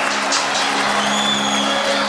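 Music with held low notes playing over the applause and cheering of a large crowd.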